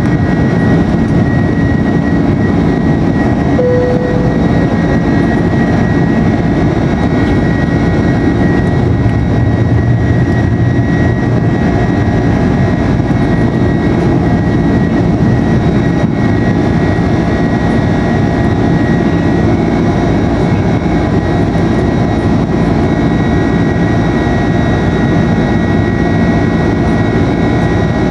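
Airbus A330-200's jet engines at takeoff thrust, heard from inside the cabin over the wing: a loud, steady noise with a high whine, as the airliner climbs out just after liftoff.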